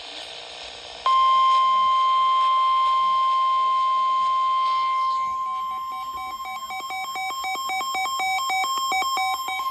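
NOAA Weather Radio warning alarm tone: a steady, loud, single 1050 Hz tone starting about a second in and holding, the signal that a warning message follows. From about halfway, a fast regular pulsing and a second broken tone sound along with it.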